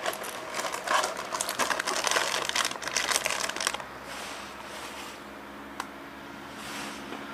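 A snack wrapper crinkling as it is opened and handled, busy for about four seconds and then quieter, with a single click near the end.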